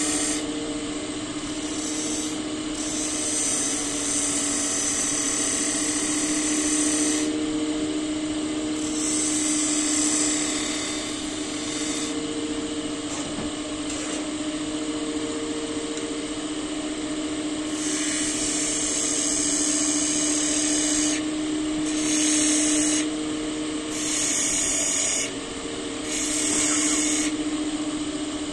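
Wood lathe running with a steady motor hum while a tool is held against the spinning wood in a series of passes, each pass adding a hiss that stops when the tool is lifted off.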